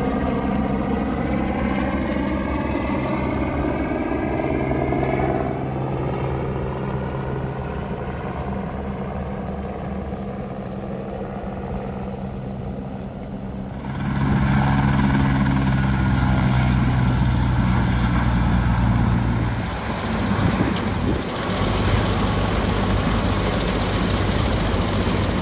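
Airbus AS350 single-turbine helicopter running: a steady hum of turbine and rotor with engine tones that slide in pitch over the first few seconds as it flies. About halfway through, the sound jumps abruptly louder and closer.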